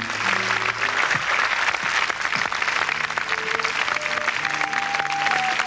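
A large crowd applauding steadily, a dense crackle of many hands, with soft music of held notes faintly beneath it.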